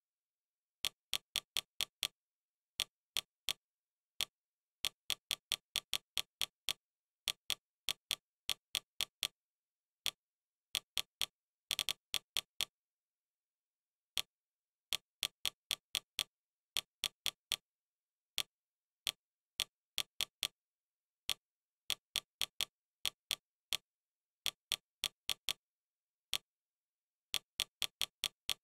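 Fire TV menu navigation sound: short, sharp, identical clicks, one for each step of the on-screen focus, in quick runs of two to six with dead silence between. They sound as the selection moves tile by tile and row by row through the TuneIn app.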